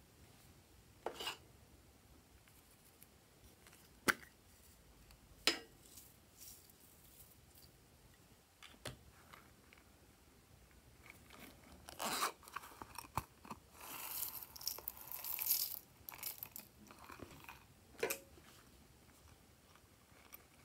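Hands handling small plastic and silicone objects: a few separate sharp clicks and knocks, then a denser crinkling, scraping stretch about twelve seconds in that lasts a few seconds.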